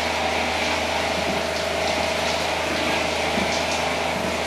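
Motorized sprayer running steadily, its pump humming with a hiss of water spraying from the wand.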